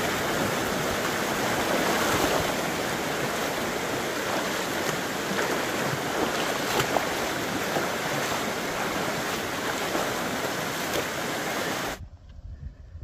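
Fast-flowing rocky stream rushing over stones as whitewater, a loud and steady roar. It cuts off suddenly near the end to a much quieter low rumble.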